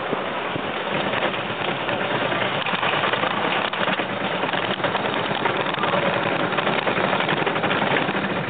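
Mountain-coaster bobsled car running down its tubular steel rails: a steady, even rolling rumble of the wheels on the track.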